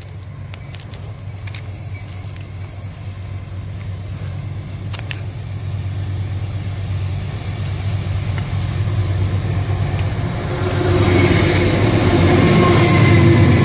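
Diesel-electric freight locomotive approaching on the track, its engine's low hum growing steadily louder and peaking as it passes close by near the end.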